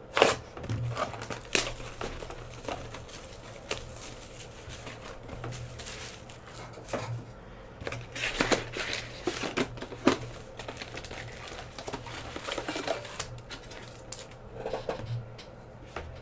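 Scattered irregular clicks and short crinkling sounds of things being handled at a desk, over a faint steady hum.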